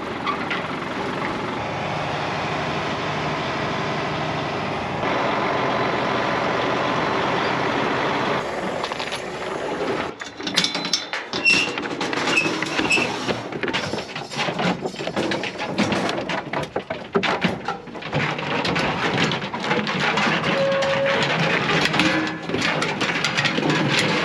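A vehicle engine running steadily, stepping up a little about five seconds in and dying away about nine seconds in; after that, a long run of irregular metallic clanks, knocks and rattles.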